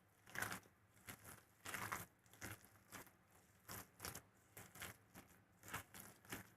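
Thick ground moong dal batter being mixed in a bowl with spices, chopped onion and herbs: faint, repeated mixing strokes, about two a second.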